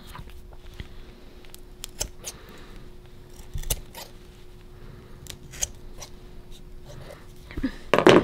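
Scissors snipping the frayed edges off the cut end of a propane hose: irregular sharp snips and clicks, loudest in a cluster near the end.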